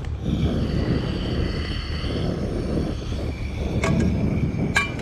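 Steady low wind rumble on the microphone, with two sharp metallic clanks about a second apart near the end as a frying pan is set onto the pot supports of a portable butane camping stove.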